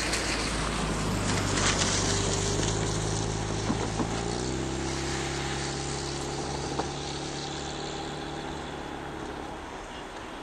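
SU45 diesel locomotive's engine running as it hauls a freight train, its note shifting about four seconds in and slowly fading toward the end, with a few sharp clicks.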